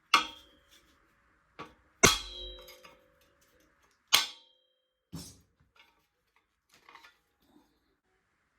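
Metal bike parts clanging as they are set down on a hard surface: three sharp, ringing clangs about two seconds apart, then a few lighter knocks.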